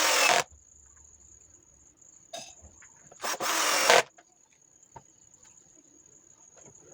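Homemade table saw driven by 775 12 V DC motors, its blade whining steadily at speed and cutting into wood in two short bursts: a brief one at the start and a longer one a little over three seconds in.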